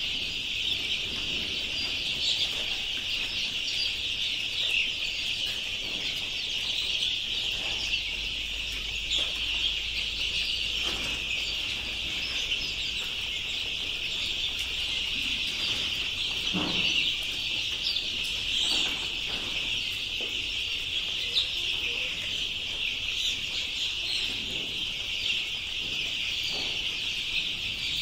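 A large brood of fifteen-day-old native (nati) chicks peeping all together, a dense, steady high-pitched chorus with many overlapping calls. The flock is lively and active.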